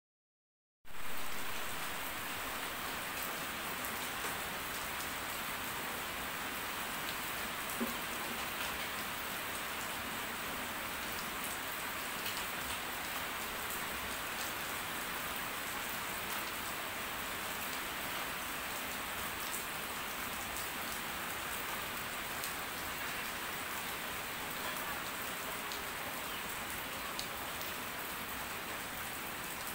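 Steady rain falling on the leaves of a shrub, an even patter with now and then a single louder drop. It starts suddenly about a second in.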